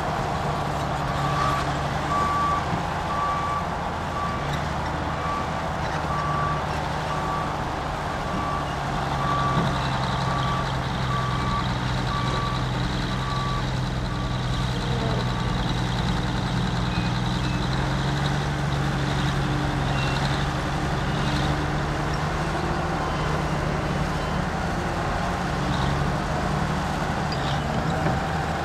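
Diesel engine of heavy earthmoving machinery running steadily, with a backup alarm beeping about once a second that stops about halfway through.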